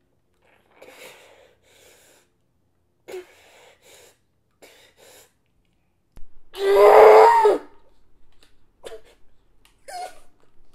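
A man breathing in short, shaky breaths, then crying out loudly in a sob about six and a half seconds in, with more breathy sobbing near the end.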